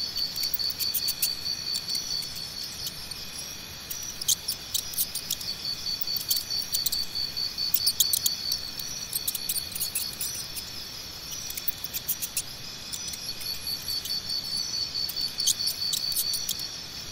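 Crickets chirping in a steady high-pitched pulsing trill, with several insects at slightly different pitches, easing off for a few seconds past the middle. Scattered sharp ticks sound over it throughout.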